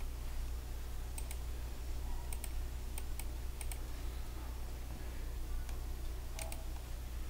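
Scattered clicks of a computer keyboard and mouse: a few short groups of keystrokes, then a quick pair of clicks near the end, over a steady low electrical hum.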